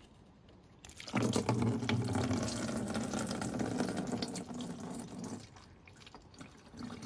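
Automatic transmission fluid gushing out of the drain hole of a Mini Countryman's automatic gearbox into a funnel as the drain plug comes out. The rush of liquid starts suddenly about a second in and eases off to a thinner flow after about five seconds.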